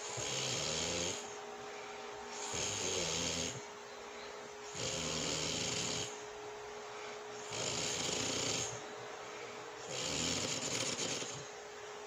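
A sleeping woman snoring, five snores each about a second long, coming about every two and a half seconds.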